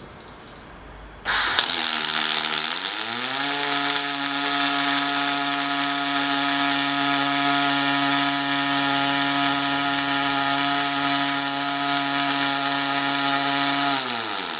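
A few short beeps, then the arc of a robotic MIG welding torch strikes about a second in and runs steadily with a hiss and crackle as it lays the root pass. Under it a steady hum rises in pitch as the weld starts and drops away as it ends near the end.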